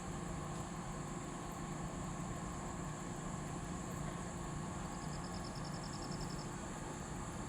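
A crane's engine running with a steady low hum. About five seconds in comes a quick run of a dozen or so high, evenly spaced ticks lasting about a second and a half.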